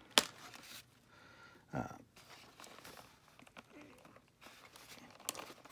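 A sharp click of small cutters snipping a plastic tag fastener that holds a toy figure in its cardboard box, followed by light handling of the packaging, with a dull bump about two seconds in and another click near the end.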